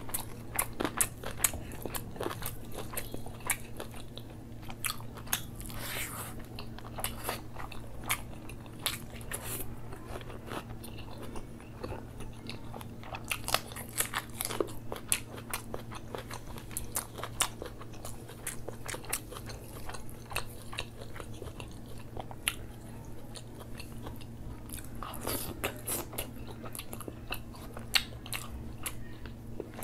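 Close-miked chewing of a handful of rice and butter chicken masala eaten by hand: continuous chewing with many short, sharp mouth clicks and lip smacks.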